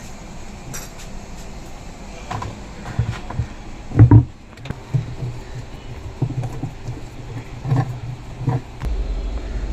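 Top-load washing machine running on test: a low motor hum that pulses unevenly, with scattered knocks and one loud clunk about four seconds in.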